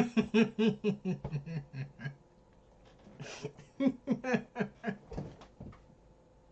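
A man laughing hard: a quick run of laughs for about two seconds, then a second round of laughter around four seconds in.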